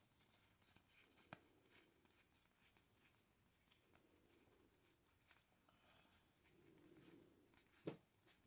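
Faint rustling and small clicks of Monopoly Star Wars Boba Fett edition property cards being fanned and sorted by hand, with a sharper click about a second in and another near the end.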